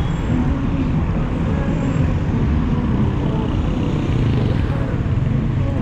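Steady low rumble of road traffic, motor vehicles running continuously without any single distinct event.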